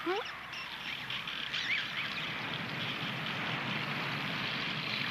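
Wind blowing hard through fir trees, a steady rushing noise that grows slightly louder.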